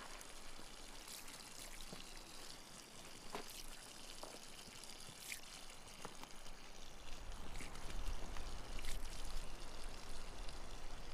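A faint, steady rushing hiss of outdoor ambience with a few soft clicks. A low rumble joins about seven seconds in.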